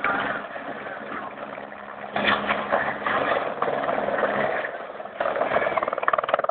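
Squirrel helicopter taking off: a steady, rapid rotor chop with the engine running underneath. It swells and dips, and grows louder about five seconds in.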